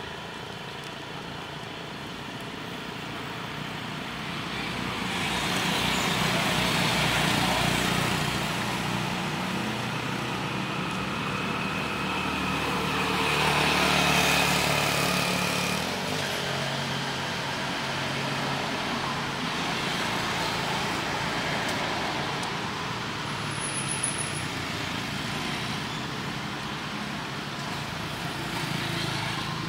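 Road traffic passing: about three vehicles each swell up and fade away over a few seconds. The loudest passes about halfway through, with a low engine drone.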